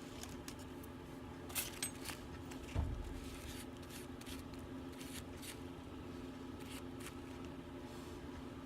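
Small clicks and light handling noises of soldering tools and a small part on a workbench, with a heavier knock just under three seconds in, over a steady low hum.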